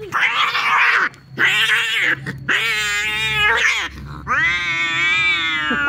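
Two male domestic cats fighting over territory: two short harsh screeches in the first two seconds, then two long drawn-out yowls of well over a second each.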